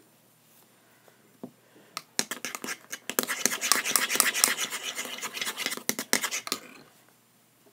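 Rapid scraping and clicking of a utensil stirring slime in a bowl. It starts about two seconds in and stops abruptly about four seconds later.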